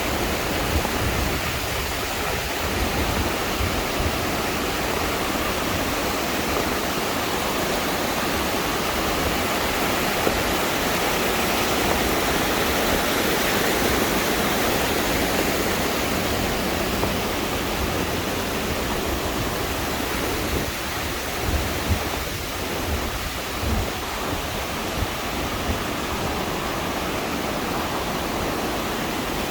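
Steady rush of a waterfall, water pouring without a break, with a few low bumps about two-thirds of the way through.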